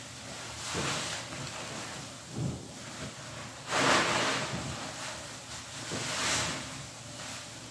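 A soapy sponge squeezed and wrung by hand in a tub of suds: wet squelching and crackling foam that swell three times, loudest about four seconds in, with a short dull thud in between.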